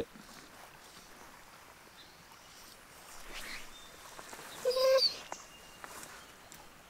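Quiet outdoor background with one short, loud, high-pitched animal call about five seconds in.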